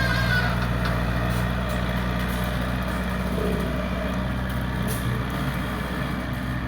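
Excavator's diesel engine running steadily with an even low hum.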